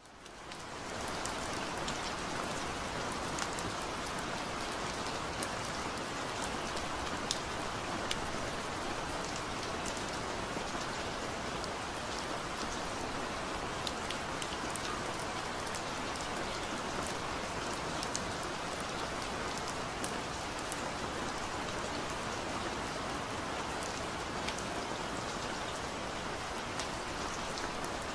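Steady rain falling, with a close patter of individual drops, fading in over about the first second.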